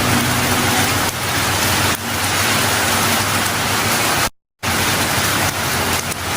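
Heavy rain falling steadily, a dense even hiss, cut off abruptly for a fraction of a second about four seconds in before it resumes.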